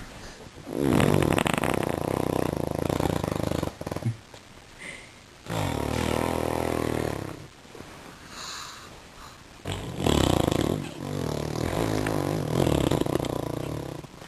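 A baby blowing with his mouth pressed against a couch cushion, making buzzing, fart-like noises in three long blows of a few seconds each.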